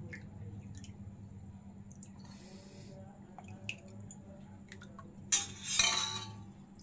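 Liquid poured from a steel ladle into a small glass tumbler, with light clinks of metal and glass, over a steady low hum. About five seconds in, a louder scraping rustle as the steel ladle dips into a steel pot.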